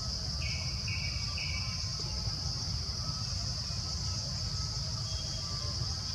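Steady high-pitched chorus of forest insects over a low rumble, with three short buzzy notes in quick succession about half a second in.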